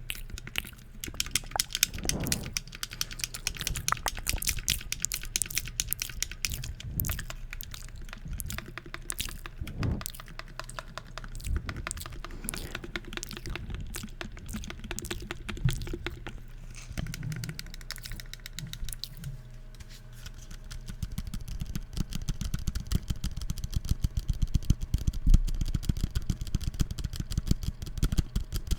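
Fast, uneven tapping and clicking of fingers and nails on the plastic shell and buttons of an Oculus Quest 2 controller, growing busier in the last third.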